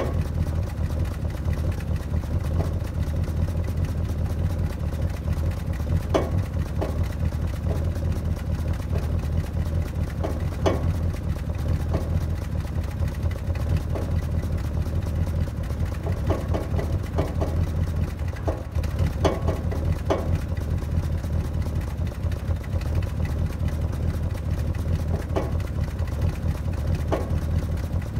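1966 Plymouth Barracuda's 318 two-barrel V8 idling steadily after a cold start, a constant low rumble of fast exhaust pulses, with scattered light ticks over it.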